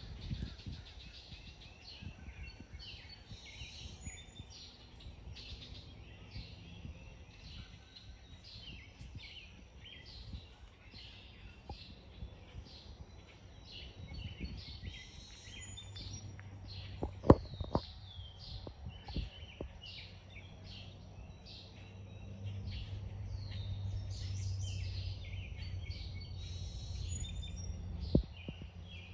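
Woodland birds singing, a continuous stream of short, falling chirps. A sharp click a little past halfway is the loudest sound, with a second click near the end, and a low steady hum rises in the second half.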